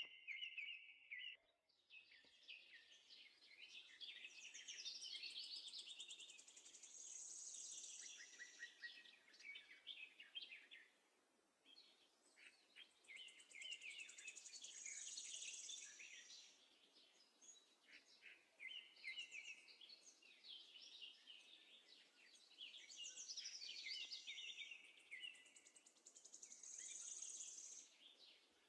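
Faint songbird singing: long runs of quick chirps and high trills with a brief break about twelve seconds in, over a low steady hiss.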